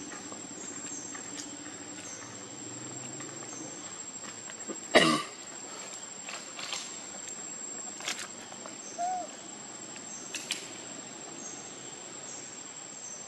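Crickets or other insects trilling steadily at a high pitch, with one sudden loud sound about five seconds in, a few fainter clicks, and a single short chirp a few seconds later.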